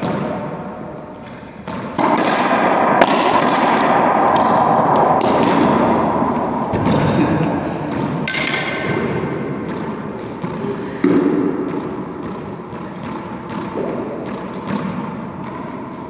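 Racquetball rally: the ball is struck by racquets and smacks off the court walls again and again, each hit echoing through the enclosed court. The loudest stretch begins suddenly about two seconds in, with another sharp jump in level about eleven seconds in.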